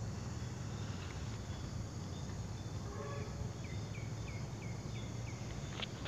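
Outdoor background noise: a steady low hum, with a quick run of about seven short, falling chirps a little past halfway and a single sharp click near the end.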